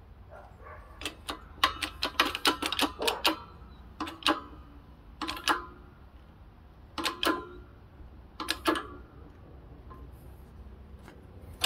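Light, sharp metal-on-metal taps seating a new bearing into a scooter's transmission case: a quick run of about a dozen in the first few seconds, then short groups of two or three spaced a second or two apart.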